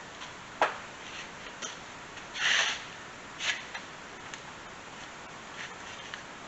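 Light workshop handling noises on hydraulic cylinder parts: a sharp metal click, a short scrape a couple of seconds later, then another click and a few faint ticks.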